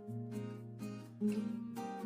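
Background music: plucked acoustic guitar chords.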